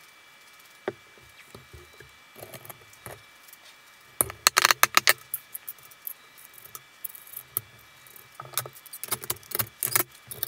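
Knocks and metallic clinks from a metal-mesh cartridge filter and its bolt hardware being handled on a plywood plenum box. A quick run of loud clicks comes about four seconds in, and more scattered clinks follow in the last couple of seconds.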